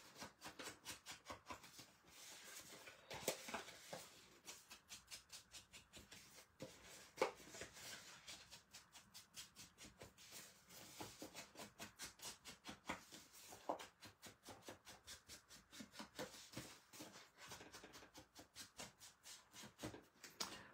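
Ink blending tool dabbed and rubbed over and over along the edges of patterned paper: faint, quick strokes, several a second, with a couple of louder knocks.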